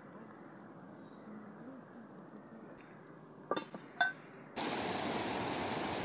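A metal spoon clinks a couple of times against a cooking pot of stew as it is stirred. Then, a little after halfway, the sound cuts to a shallow, rocky river rushing loudly and steadily.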